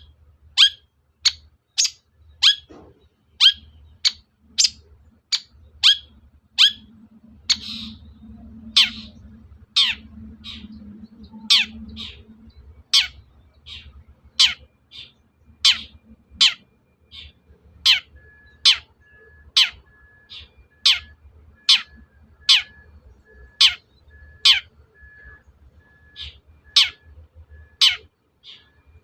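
Long-tailed shrike giving a steady series of short, sharply falling calls, about one to two a second. This is a lure call, meant to provoke a caged shrike into answering.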